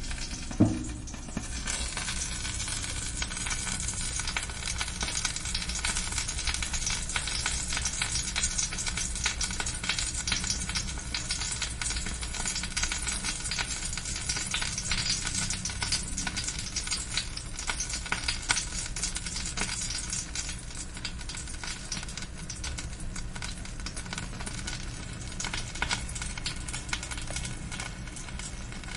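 Roasting chicken sizzling, its fat crackling with many small pops, with a steady low hum underneath. A single low thump about half a second in.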